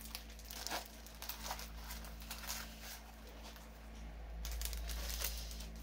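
Plastic packaging of diamond painting kits crinkling and rustling as it is handled, with a few light clicks and taps. The rustling grows louder from about four seconds in, as a wrapped canvas kit is picked up.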